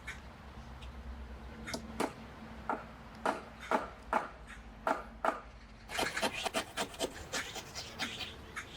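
Hand work on wood: short, irregular rubbing or scraping strokes, about two a second at first, then quicker and denser about six seconds in.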